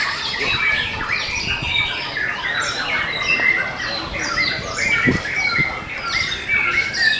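Many canaries in hanging cages singing at once: a dense chorus of overlapping high chirps, warbles and trills.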